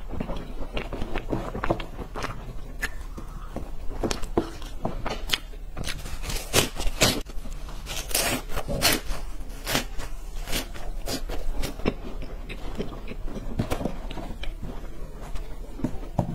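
Crisp, dry brown snack sticks being bitten and chewed close to a lapel microphone: a run of sharp crunches, densest and loudest in the middle, sparser and softer near the start and end.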